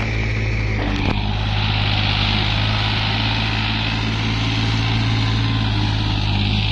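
Diesel tractor engine running steadily.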